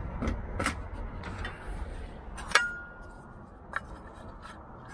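A bent aluminium angle bracket being handled and test-fitted in a cockpit, making light clicks and knocks. About two and a half seconds in comes one sharp metallic clink that rings briefly.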